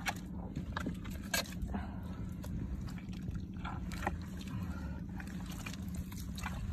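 Hands digging and scooping wet mud out of a hole: irregular wet squelches and slaps, several in a few seconds, over a steady low rumble.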